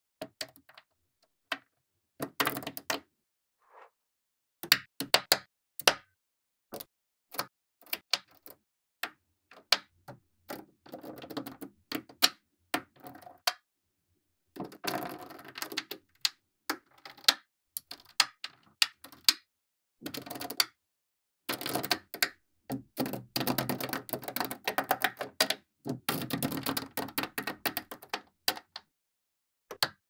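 Small magnetic balls clicking and snapping together: single sharp clicks, with longer runs of rapid rattling clicks about halfway through and in the last third.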